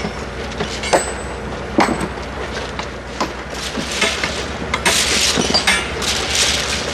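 Metal tools striking and clinking on track work: a few separate sharp blows, then a denser stretch of scraping and clattering about five seconds in, over a steady engine hum.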